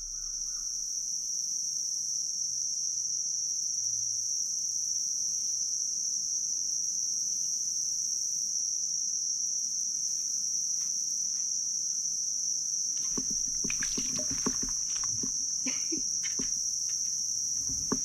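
A steady, high-pitched chorus of insects that holds one pitch without a break. Scattered light clicks and knocks join in for the last few seconds.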